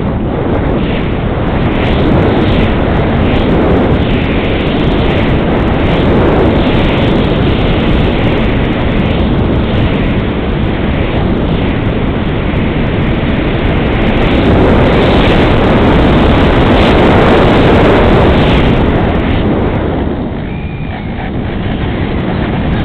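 Loud, steady rush of air buffeting the onboard camera microphone of a fast-flying RC model plane, starting suddenly and easing a little near the end.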